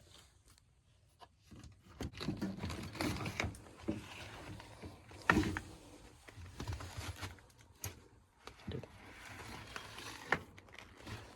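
Irregular handling noise from an HVAC air filter and its vent being worked loose: rustling and scraping, scattered clicks, and a sharp knock about five seconds in.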